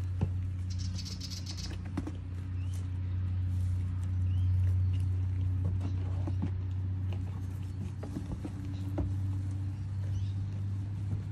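Goats pulling at and chewing hay: scattered crunching, rustling and clicking sounds over a steady low hum.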